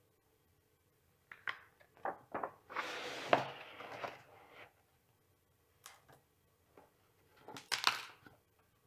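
Pages of a large hardcover photo book being turned by hand on a wooden table: paper rustling and sliding, with light taps and knocks. A second rustle with knocks near the end as the book is shut.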